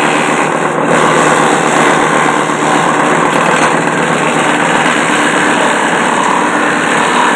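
Homemade wooden chopping machine, driven by a water-pump electric motor, running steadily while its blades chop fresh grass stalks fed into the chute.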